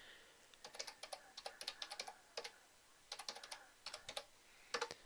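Computer keyboard typing: short runs of keystrokes with brief pauses between them, and a louder pair of key presses near the end.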